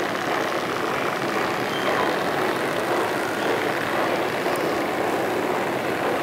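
Steady, even rushing noise of an underground subway station hall, with no distinct knocks or tones.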